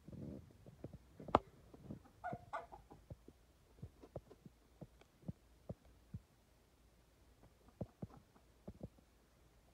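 Faint scattered clicks and taps, with one sharper click about a second in, followed by a short pitched animal call about two seconds in.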